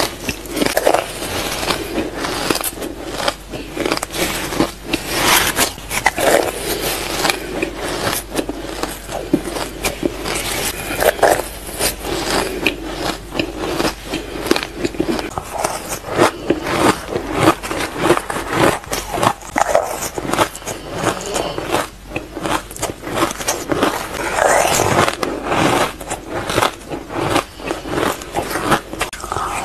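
Mouthfuls of shaved ice being bitten and crunched, a dense, uneven run of crunches and crackles.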